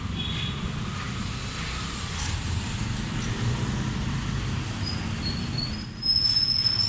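Steady rumble of passing road traffic, with a brief high squeal near the end.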